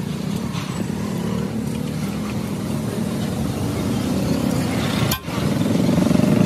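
Steady low rumble of a running engine or machine motor. It breaks off briefly about five seconds in and comes back louder.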